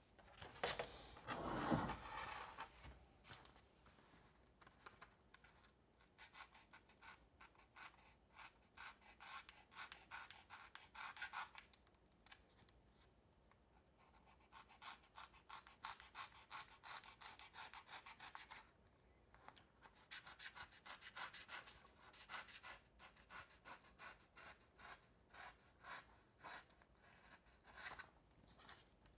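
Craft knife blade cutting and scraping along paper-faced foam board in rapid short strokes, a faint scratchy rasping that pauses briefly now and then, while wingtip end caps are trimmed flush with the wing. A soft bump about two seconds in as the wing is handled.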